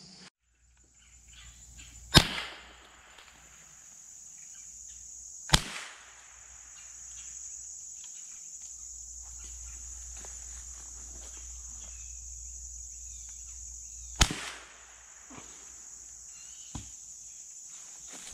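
Three gunshots from a hunting gun, about two seconds, five and a half seconds and fourteen seconds in, each dying away in a short echo. A steady high insect buzz runs underneath.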